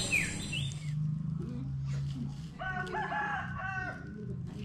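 A rooster crowing once near the middle, a call of several rising and falling notes, over a low steady hum.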